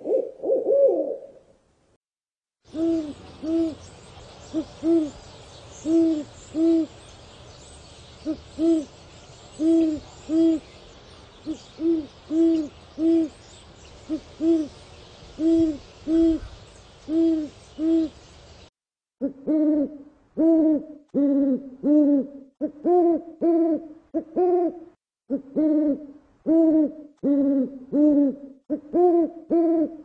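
Owl hooting: short low hoots in pairs and small groups over a steady hiss. Just past the middle there is a brief break, then a faster run of hoots that shift up and down slightly in pitch.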